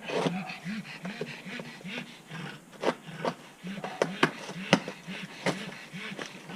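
Cardboard box being opened and handled: a run of sharp clicks, taps and rubbing scrapes at an irregular pace.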